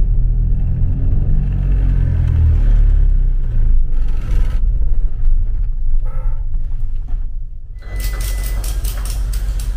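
Low, steady rumble of a car driving slowly up a ramp and onto a ferry's vehicle deck, heard from inside the cabin. About eight seconds in, a quick run of sharp clicks as a lashing strap is ratcheted tight to secure the car to the deck.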